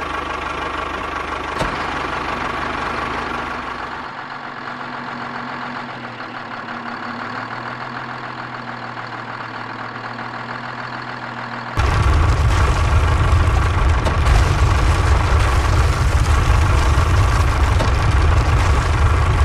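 Homemade mini tractor's small engine running steadily. About twelve seconds in, the sound jumps abruptly to a much louder, deeper rumble.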